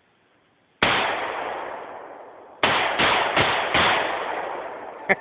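AR-15 rifle firing five shots: one single shot about a second in, then four in quick succession a couple of seconds later. Each crack trails off in a long echo.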